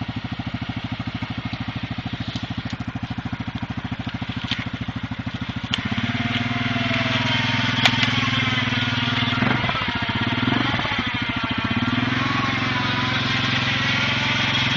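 Yamaha Grizzly ATV engine working through deep mud. It runs steadily at low revs, then about six seconds in the throttle opens and the engine gets louder, its pitch rising and falling under load.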